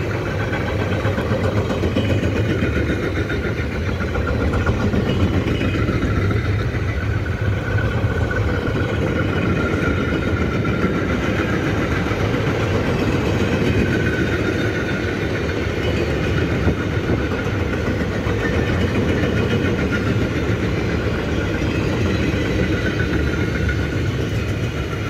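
Freight train of double-deck car-carrier wagons rolling past: a steady rumble and rattle of wheels on rails, with a faint whine above it, quietening slightly near the end as the last wagons go by.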